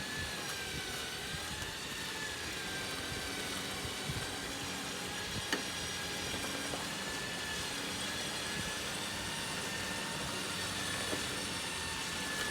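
Steady mechanical running of an off-road vehicle, with a thin high whine that wavers slightly in pitch and a single sharp click about five and a half seconds in.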